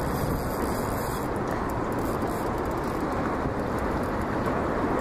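Steady rushing wind noise on the microphone over choppy river water, with no rhythm or clicks in it.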